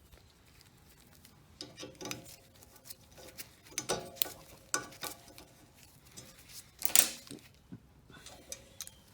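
Hand tools clinking and scraping on a steel high-pressure waterjet swivel while a hoop seal is worked loose and pulled out: scattered small metal clicks and rattles, with one louder clack about seven seconds in.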